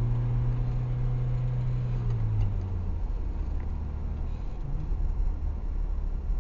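Car engine running with road rumble while driving; the engine's low hum drops to a lower pitch about two and a half seconds in.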